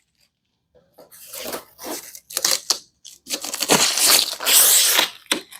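Plastic protective bag being pulled and crumpled off a flat-screen TV: a run of crinkling and rustling that starts about a second in and is loudest in the last two seconds.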